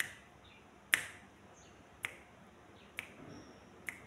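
Five sharp clicks about a second apart, the second one the loudest, over quiet room tone.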